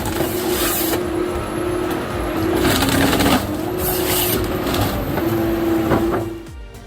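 Heavy forestry machine running with a steady drone while wood cracks and crushes in several loud bursts, about one, three and four seconds in. The sound falls away near the end.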